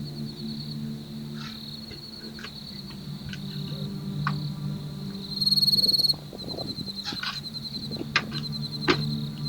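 Night insects chirping in a steady, rapidly pulsing trill, much louder for about a second just past halfway, over a low steady hum. A few faint clicks come through, two of them sharper near the end.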